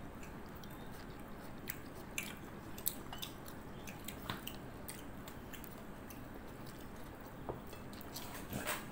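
A person chewing a mouthful of fresh tomato and rice, with scattered small soft mouth clicks and smacks.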